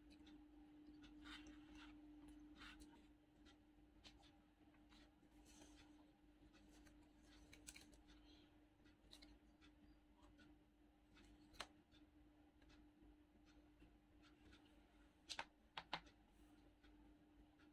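Near silence: faint clicks and scrapes of a metal spoon against a paper food bucket and cups, over a steady low hum. A quick run of three sharper clicks comes near the end.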